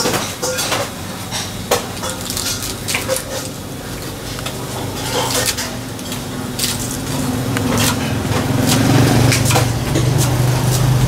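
Kitchen knife chopping cabbage on a wooden cutting board: a series of irregular, sharp knocks as the blade strikes the board.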